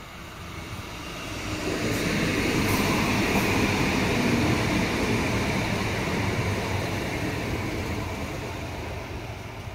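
Cologne Stadtbahn light-rail train passing on ballasted track: a rumble of wheels on rail with a hiss on top, swelling over the first two seconds and fading as it pulls away. A few sharp clicks come near its loudest point.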